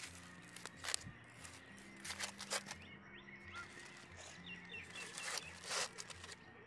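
Foil-wrapped chicken legs being set down on gravelly red soil in a metal bowl: several brief crinkling, crunching rustles. Birds chirp, with soft background music underneath.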